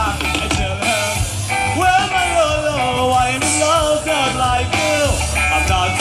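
Live music with a singer, played through large outdoor stage loudspeakers, with a steady, heavy bass.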